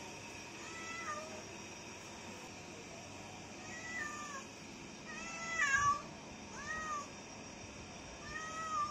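Tabby cat meowing about five times, short calls that rise and fall in pitch, the loudest one a little past the middle: the cat calling to be fed.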